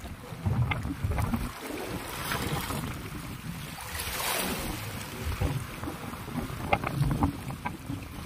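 Wind buffeting the microphone over sea waves washing against shore rocks, with two rushes of surf a couple of seconds apart and a few small clicks near the end.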